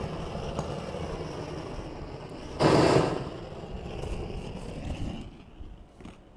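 Propane roofing detail torch burning with a steady rush of flame. About two and a half seconds in it surges much louder for half a second, then settles and grows quieter from about five seconds in.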